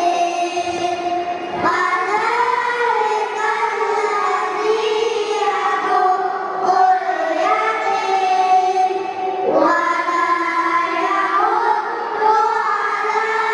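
Children singing a melodic phrase, with long held notes that glide between pitches.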